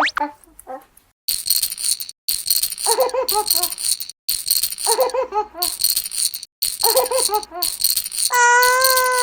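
Cartoon rattling sound effect in repeated stretches with short breaks, with a giggling cartoon voice over some of them. Near the end a long, high, steady wailing cry begins.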